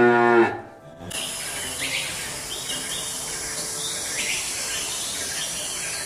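A Holstein dairy cow's moo, a low drawn-out call that ends about half a second in. Then a steady hiss of outdoor ambience with short, high bird chirps repeating every second or so.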